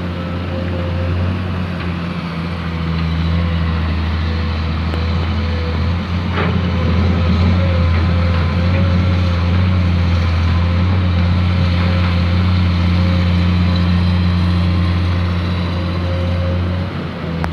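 Excavator's diesel engine running steadily, with a faint steady whine above its low hum. It gets a little louder about three seconds in, and there is a single clank about six seconds in.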